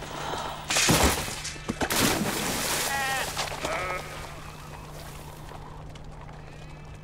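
Sheep bleating in wavering calls, with a couple of sudden noisy bursts about one and two seconds in; it grows quieter after about four seconds.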